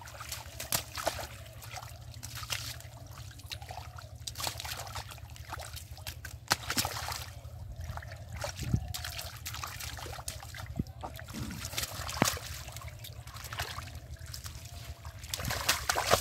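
Shallow muddy water splashed and sloshed by hands groping for fish, with many sharp splashes and drips over a wet trickle.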